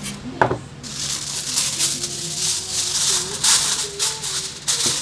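Aluminium foil crinkling and rustling as a sheet is pulled off the roll and handled, in irregular bursts, with one sharp knock about half a second in.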